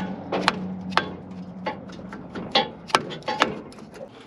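A mallet tapping on the cast-iron manifold of a 1955 Chevrolet stovebolt inline-six to break it loose from the head once its bolts are out. It makes about a dozen sharp knocks at an uneven pace, fading near the end.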